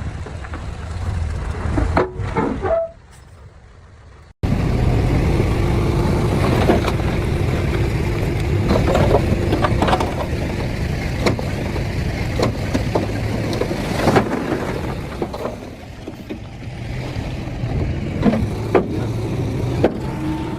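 Bulldozer's diesel engine running with scattered metallic clanks and knocks. It fades low about three seconds in and comes back abruptly about a second and a half later.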